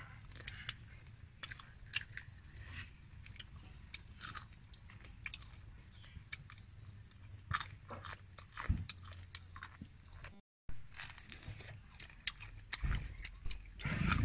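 Close-up chewing and biting of crunchy cooked insects: many short, crisp crunches scattered irregularly, with a brief dropout about two-thirds through.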